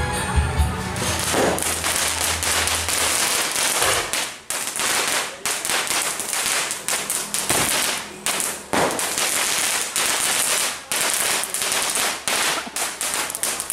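Fireworks going off: a dense, rapid run of crackling pops over a steady hiss, with a few louder bangs.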